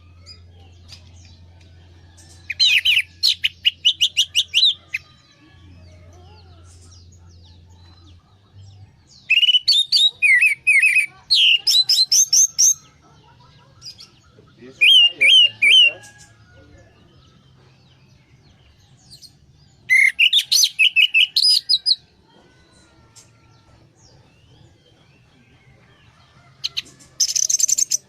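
Orange-headed thrush (Anis merah) singing five loud phrases of rapid, high, chattering notes with pauses of a few seconds between them.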